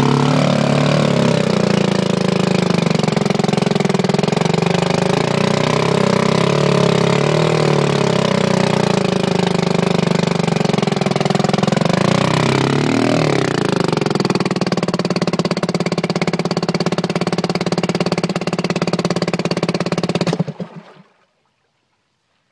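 Vintage 1936 Champion 3B two-stroke outboard motor running in a test barrel of water, its speed dipping briefly about halfway through before it runs on. Near the end it cuts out and winds down quickly to silence.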